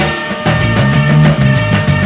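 Background music: an instrumental stretch of a band song with a steady bass line.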